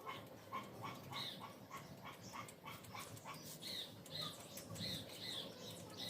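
Faint animal calls, short and repeated about two to three times a second.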